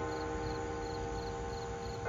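A church bell rings on after a stroke, its tone slowly dying away, and is struck again right at the end. Crickets chirp steadily in the background, about twice a second.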